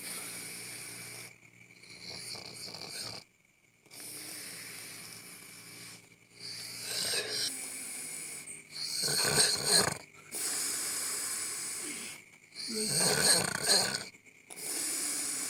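A sleeping person snoring in a series of breaths a couple of seconds apart, most of them hissing, with two louder, deeper snores about nine and thirteen seconds in.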